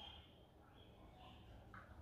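Near silence, with a couple of faint scrapes of a metal spoon scooping soft cupuaçu pulp from the fruit's shell.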